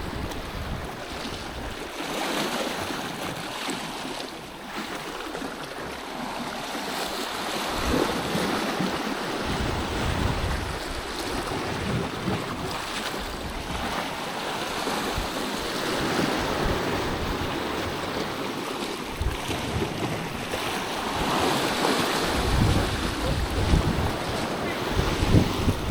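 Sea waves surging and washing against the rocks, swelling and easing, with wind buffeting the microphone in low rumbling gusts, strongest near the start and towards the end.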